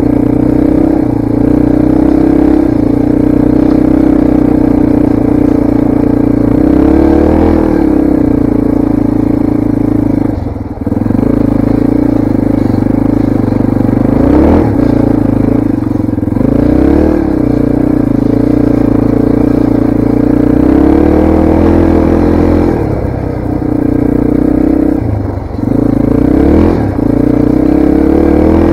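Yamaha TT-R230 dirt bike's air-cooled single-cylinder four-stroke engine running steadily while being ridden, its pitch briefly dipping and rising several times, with two short drops in loudness.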